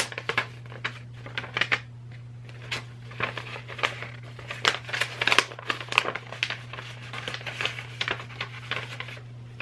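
Folded sheets of printer paper being unfolded and handled: crisp crinkling and rustling in irregular bursts, busiest in the second half. A steady low hum runs underneath.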